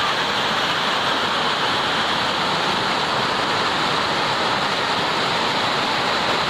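Rain falling steadily, a constant even hiss with no breaks.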